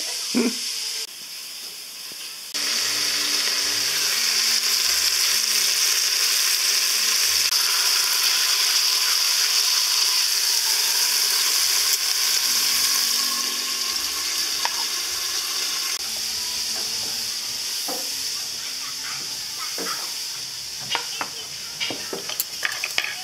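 Pieces of rooster sizzling in hot fat in a stockpot, a steady hiss that starts suddenly a couple of seconds in and eases off in the second half. Several sharp clicks and knocks of metal utensils come near the end.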